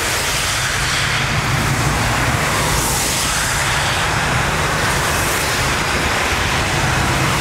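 Steady jet roar of an Airbus A380's four engines on final approach, a broad hiss over a low rumble, holding level throughout.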